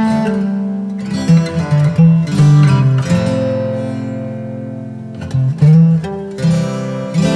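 Background music led by an acoustic guitar playing plucked notes and strummed chords.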